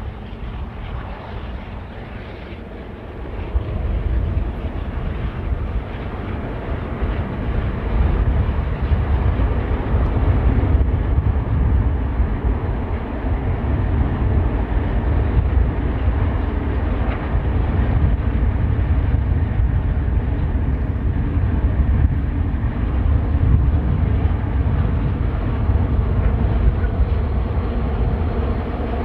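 Two ALCO diesel-electric locomotives hauling a train, heard from a distance as a low, steady engine rumble. The rumble rises about four seconds in and stays louder as the train draws nearer.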